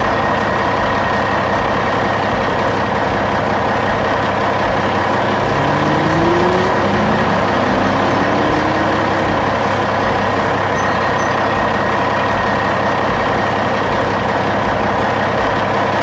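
A heavy vehicle engine running steadily, with a couple of rising tones about six seconds in.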